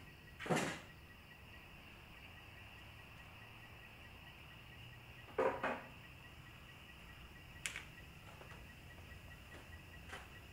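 Crickets chirring steadily and faintly, with a few short scuffs and knocks: one about half a second in, a double one about five and a half seconds in, and fainter ones near eight and ten seconds.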